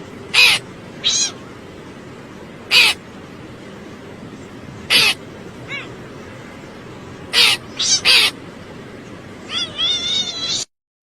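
Domestic cat meowing in short, high calls, about eight times, the last one longer and wavering, over a steady background hiss.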